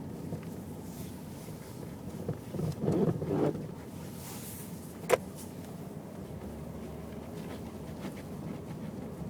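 Mazda Millenia driving with steady road noise and a burst of knocking from the right-side suspension a couple of seconds in, then one sharp click. The knock has not been cured by new stabilizer links, bushings and ball joints.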